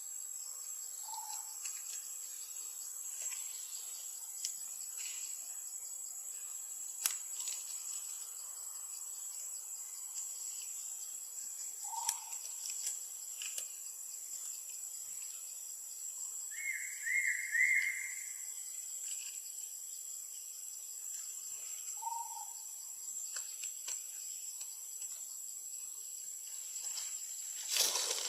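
Steady high-pitched insect drone, with a few short calls (three single notes and a quick run of chirps about two-thirds of the way through) and scattered faint clicks.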